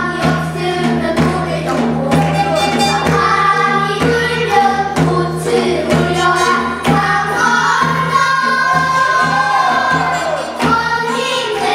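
Children's choir singing a Korean traditional-style (gugak) song together over instrumental accompaniment with a steady beat.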